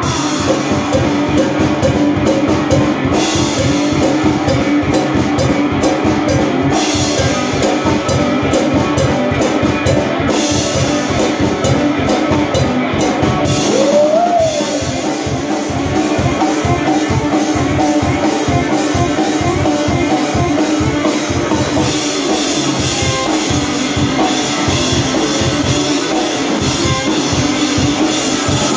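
Live electric guitar and drum kit playing a rock song together, with a steady driving beat on the kick drum and cymbals.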